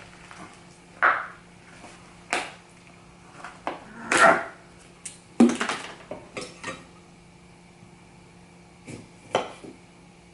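Scattered knocks and clatter of kitchen items, containers and a glass, being handled and set down on a counter: about half a dozen separate thumps and taps with quiet gaps between them.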